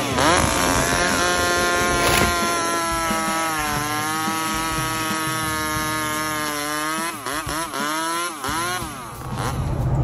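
Two-stroke chainsaw running at high revs while bucking a log, its pitch sagging a little under load. About seven seconds in, it revs up and down several times and then drops away.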